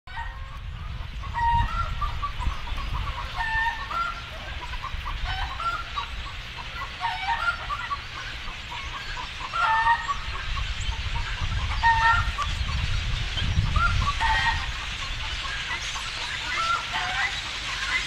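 Many birds calling, with short calls repeated and overlapping all through, over a low rumble.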